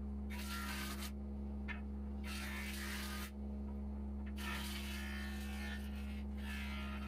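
A wood lathe motor runs with a steady hum while a turning chisel cuts the spinning teak workpiece. The hissing cutting noise comes and goes in about four passes of a second or two each.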